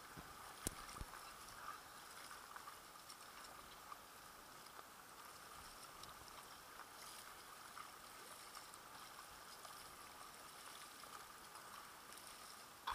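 Faint, steady wash of sea water around an inflatable kayak as it is paddled, with a couple of faint ticks about a second in.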